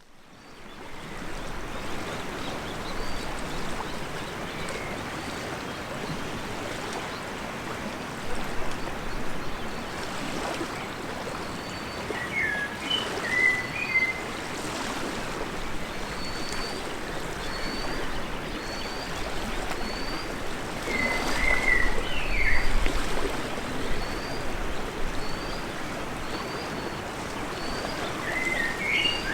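Birds singing over a steady rush of water at a loch shore. One bird repeats a short high note about once a second, and another bird's louder warbling phrase comes three times: near the middle, about two-thirds in, and near the end.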